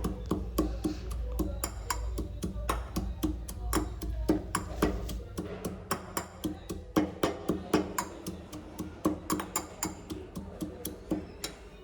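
Pestle pounding betel leaf and ginger in a mortar, steady strikes about three a second with a short pause about halfway through, crushing them until the juice comes out.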